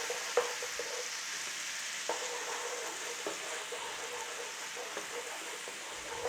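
Garlic and ginger paste frying in hot oil with coriander and fennel seeds, with a steady sizzle as it is stirred round the pan. A few light knocks of the stirring utensil against the pan ring briefly.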